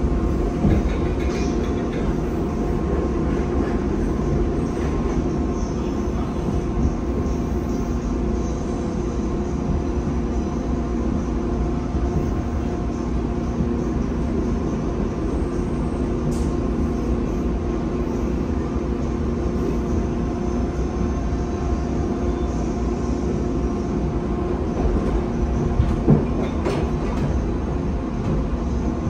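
Chicago 'L' Blue Line rapid-transit train running between stations, heard from inside the car: a steady rumble of wheels on rail with a steady hum. A few short knocks come through, one near the start and a couple near the end.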